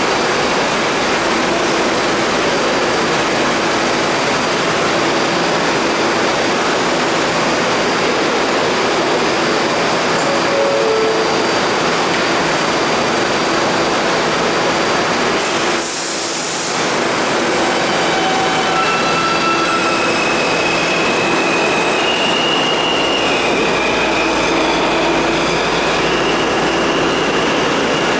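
New York City Subway R160 train standing at a station platform with a steady hum and equipment noise, then pulling out. About sixteen seconds in there is a short hiss, and after it a series of high whining tones that step up in pitch as the train accelerates away.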